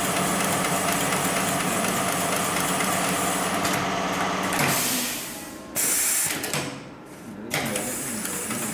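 Hightex GLK700-6040 automatic pattern sewing machine running as it stitches, with a steady mechanical whir. About halfway through the running drops away and there are bursts of hissing, the loudest about two thirds in, before the machine runs steadily again near the end.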